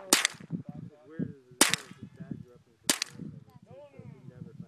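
Three shots from a Ruger 10/22 .22 rifle fitted with a Gemtech Outback II suppressor, firing Federal high-velocity .22LR, each a sharp crack about a second and a half apart.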